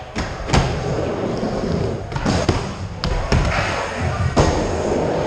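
Skateboard wheels rolling on a mini-ramp, with several sharp clacks of the board and trucks striking the ramp and coping.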